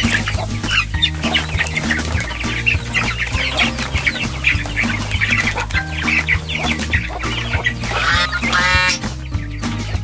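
A flock of young broiler chickens peeping and clucking as they crowd in to be fed, with many short high chirps throughout. A louder, drawn-out call stands out near the end. Background music with steady low notes runs underneath.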